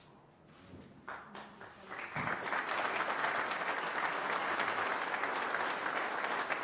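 Large indoor audience applauding: scattered claps start about a second in and swell into full, steady applause by about two seconds.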